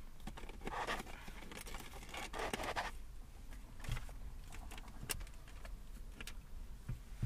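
Hand rummaging in a car's centre console: paper rustling and scraping, heaviest in the first three seconds, followed by a few sharp clicks.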